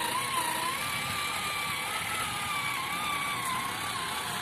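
A small motor running with a high whine that wavers slowly up and down in pitch, over a rough, steady hum.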